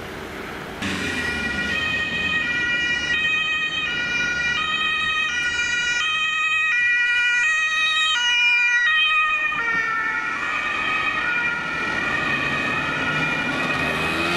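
German ambulance's two-tone siren (Martinshorn) sounding the alternating high-low 'tatü-tata', switching note about every half second. It starts suddenly just under a second in, and the pattern blurs about ten seconds in as the ambulance passes. Road traffic runs underneath.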